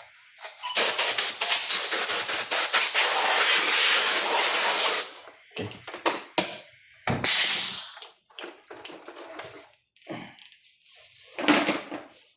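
Aerosol cleaner sprayed from a can in one long hiss of about four seconds, sputtering as it starts, then a second short spray about seven seconds in, followed by light clicks of handling.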